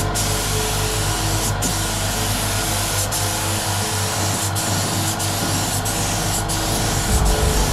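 Compressed-air gravity-feed spray gun hissing steadily as it sprays base coat onto a jet ski hull. The hiss drops out briefly several times, at roughly one-second intervals.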